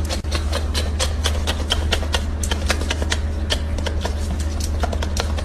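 A dog chewing a piece of steak: quick, irregular wet clicks and smacks over a steady low hum.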